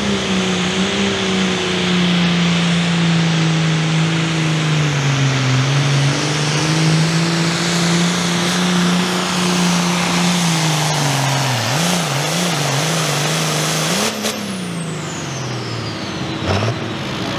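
Ford hot farm pulling tractor's 466-cubic-inch turbocharged diesel running flat out under load as it drags a weight-transfer sled, its pitch sagging and wavering as it works. About three-quarters of the way in it flares briefly, then winds down as the throttle comes off, with a high turbo whistle falling away.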